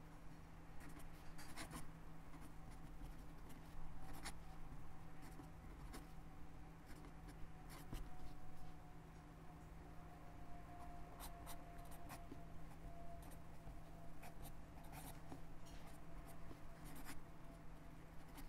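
Pen writing in cursive on lined notebook paper: short, irregular scratches and light taps as each letter and stroke is formed, over a faint steady hum.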